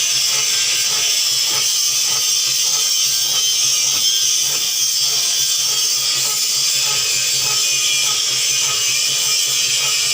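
Metalworking on a coconut-press screw: a steady high hiss with faint regular ticks about twice a second.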